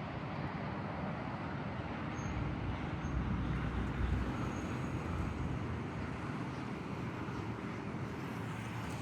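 Jet engine noise from a Boeing 737-800BCF freighter landing, a steady rumble that swells about four seconds in and then eases.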